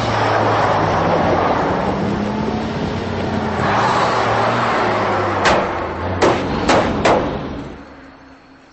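Cartoon sound effect of a fire truck's engine running hard as it gives chase, with a heavy rush of noise. A little over halfway through come four sharp thumps as the truck strikes and runs down a gazelle, and then the engine sound dies away.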